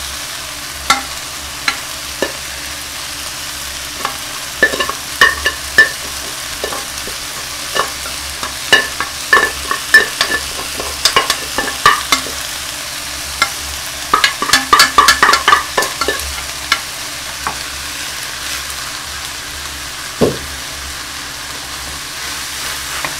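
Kimchi and rice sizzling in a frying pan over high heat. A wooden spatula scrapes and knocks irregularly as cooked rice is scraped out of a rice-cooker pot into the pan and stirred, the knocks thickest about fourteen to sixteen seconds in.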